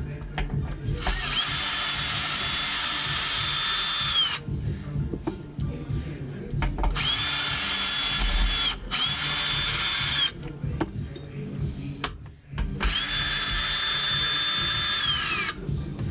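Power drill backing out the mounting screws of subwoofers, in four runs of a few seconds each; the motor's whine rises as it spins up and drops as it stops. Steady low thumping runs underneath.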